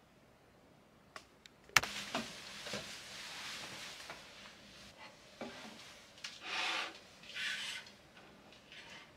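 Handling sounds at a small table: a click, then a sharp knock just before two seconds in, followed by rustling. Near the end come two short rubbing scrapes as a ceramic plate is slid across the tabletop.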